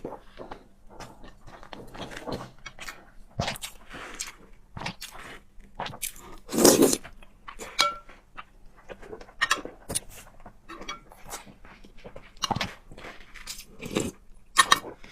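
Close-miked eating sounds of a person biting and chewing fried eggs and noodles: irregular short crunches and mouth smacks, with one longer, louder sound about six and a half seconds in.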